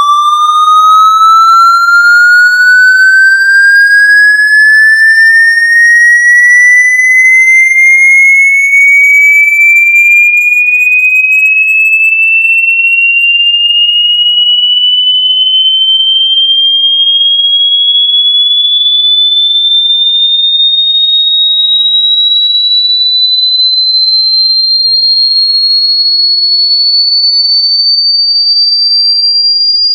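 Loud synthesized electronic tone sweeping slowly and steadily upward in pitch, a single high note with faint overtones, used as an annoying sound effect.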